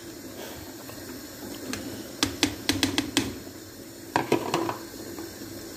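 Ground pepper being tipped and scraped from a plastic bowl into a pot of simmering tomato stew. A run of sharp taps comes about two to three seconds in and another cluster a little after four seconds, over a steady low hiss of the simmering pot.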